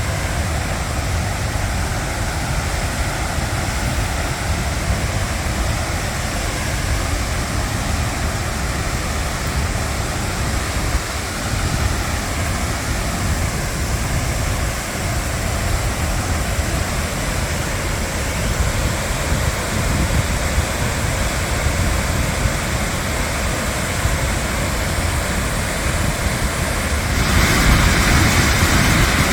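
Waterfall rushing as a steady roar of falling water, with a deep rumble underneath. It grows brighter and a little louder about 27 seconds in.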